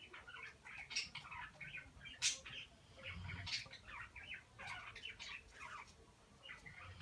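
Dog snoring in deep sleep, with one low snore about three seconds in. Many short high squeaky chirps run throughout.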